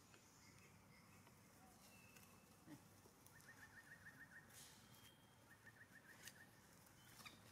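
Near silence: faint outdoor ambience, with two short, faint trills of rapid chirps, about eight a second, a little past the middle and again later.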